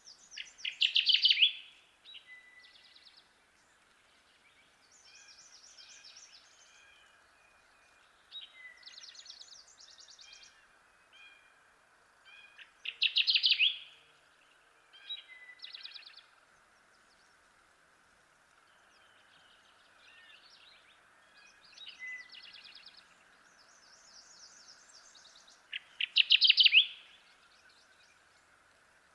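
Kirtland's warbler singing its loud, rapid song three times, roughly every twelve seconds, each phrase about a second long. Fainter bird song comes in between, over a steady faint hiss.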